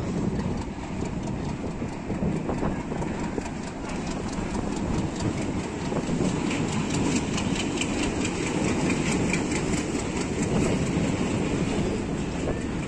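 A diesel-hauled passenger train arriving and passing close by. The locomotive runs past first, then the coaches roll by with their wheels clicking over the rail joints in a steady rhythm over a low rumble.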